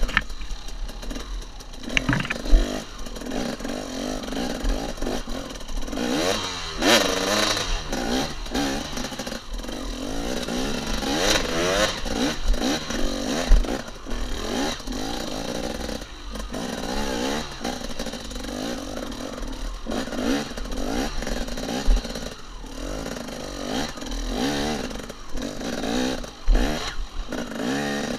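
KTM 250 XC two-stroke dirt bike engine revving up and down as the throttle is blipped and rolled over rough ground. A few sharp knocks from the bike hitting bumps and rocks cut in, the loudest about two and a half seconds in and near the middle.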